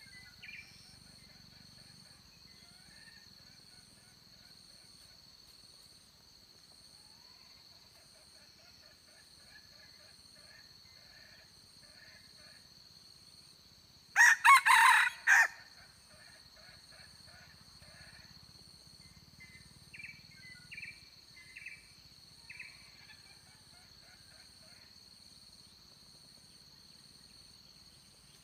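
A red junglefowl rooster crows once, loud and short, about halfway through. Softer short calls from the birds come before and after it.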